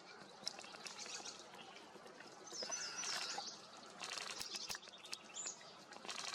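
Small songbirds chirping in short high calls, a cluster of them about halfway through and another call near the end, over a steady outdoor background with a few sharp clicks.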